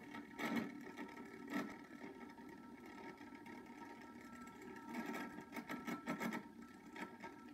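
Toy gyroscope spinning on a wooden coffee table: a faint steady whir with a thin high hum, with a few soft knocks here and there.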